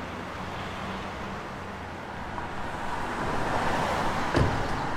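City street traffic ambience: a steady hiss of passing cars that swells slightly after a couple of seconds, with a short knock near the end.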